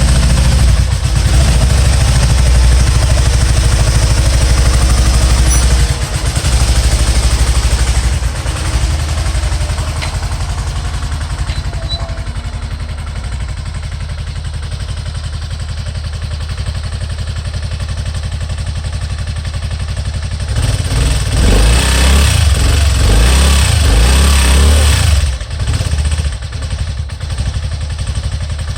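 Spyder engine running with a misfire. It runs loud for about six seconds, then settles to a lower, steady run. Near the end it is revved for about five seconds, then drops back and runs unevenly.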